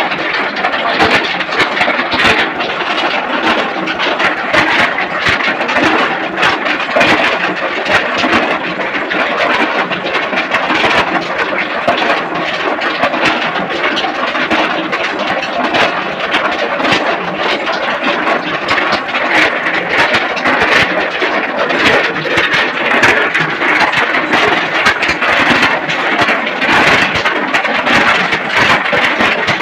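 A loud machine running steadily, with a constant dense clatter of rapid knocks and no clear pitch.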